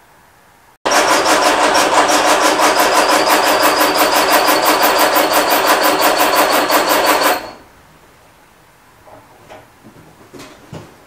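A 1948 Ford Prefect's 1172cc sidevalve engine cranking on its starter motor in an even, rhythmic churn for about six and a half seconds, starting abruptly about a second in and cutting off. It does not fire, despite a squirt of starting fluid in the carburettor: the owner suspects the fuel supply, and the battery is running down.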